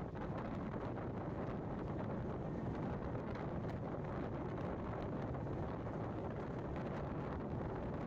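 Steady wind noise rumbling on the microphone, with no clear engine note or other distinct event.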